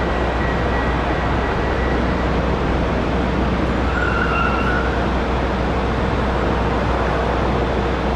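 Jet engines of an Airbus A330-200 at take-off thrust: a steady, even jet noise with a faint steady tone running through it.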